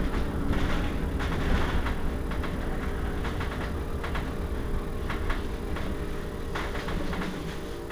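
Irizar i2e electric bus standing at a stop: a steady electric hum over a low rumble, with scattered short clicks, fading slightly toward the end.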